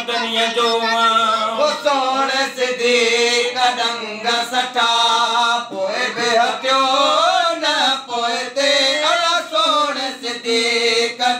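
A man singing a Sindhi naat, drawing out long wavering notes in a single voice with no words clear.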